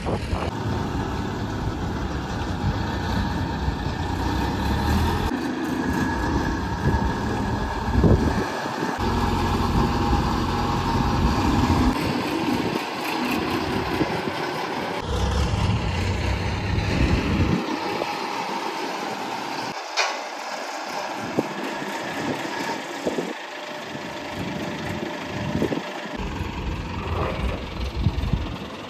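A heavy engine running steadily, with gusts of wind buffeting the microphone.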